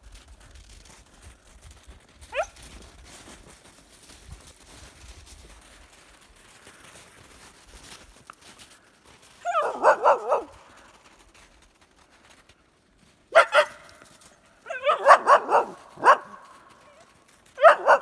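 A dog barking: one short rising yelp about two seconds in, then clusters of quick barks from about halfway through to the end.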